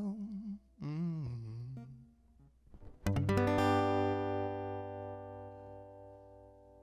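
A last sung phrase fades out, then a guitar strums a final chord about three seconds in, which rings out and slowly dies away, ending the song.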